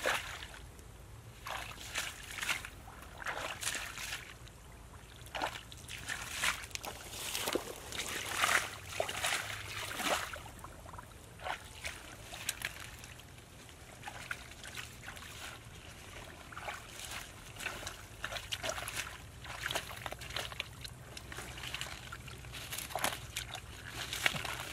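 Someone wading and rummaging in shallow muddy water among leafy water plants: irregular sloshes and splashes of feet and hands in the water.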